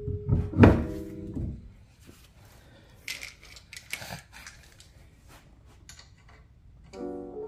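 Metal clicks and taps of a hand wrench working the lower mounting bolts of a new rear coilover, with one louder knock about half a second in. Light plucked background music plays over the first second and comes back near the end.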